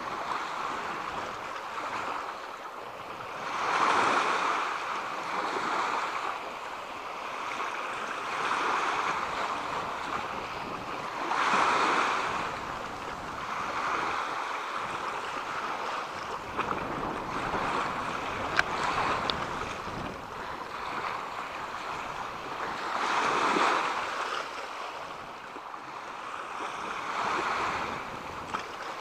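Small waves washing in over sand and rocks at the water's edge, the wash swelling and ebbing every few seconds, with a few stronger surges.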